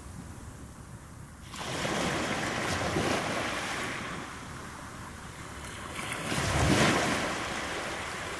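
Ocean surf washing over a rocky shore: a steady wash that swells sharply about a second and a half in and surges again later.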